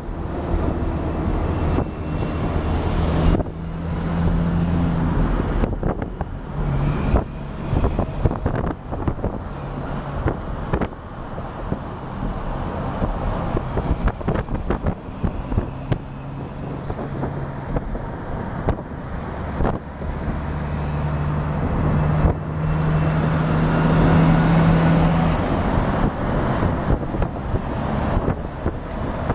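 Diesel freight train running: a steady low engine drone that swells and fades, with repeated sharp clicks and occasional high squeals rising and falling.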